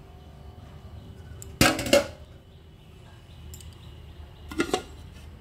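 Metal cookware clattering as it is handled: an aluminium pot and lid and steel dishes clank twice, each time a quick pair of ringing hits, about one and a half seconds in and again near the end.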